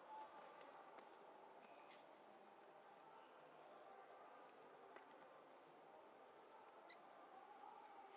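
Faint, steady high-pitched insect drone in forest ambience, with a few tiny clicks and short chirps.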